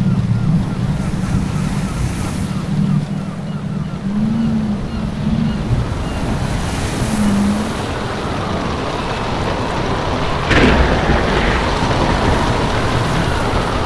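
Rough sea: waves and wind keep up a steady rush, with a low tone that comes and goes in the first half. A single sharp crack about ten and a half seconds in is the loudest moment.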